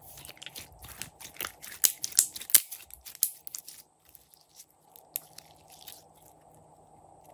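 Glossy yellow slime squeezed and stretched by hand, giving a quick run of sharp crackles and pops. They are packed tightly and loudest in the first four seconds, with a few scattered ones later.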